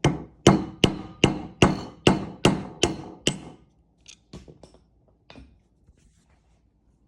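Hammer striking a screwdriver held against the side of a valve stem seal in a cylinder head: nine sharp metallic taps at about two and a half a second, cutting through the seal. Four fainter clicks follow.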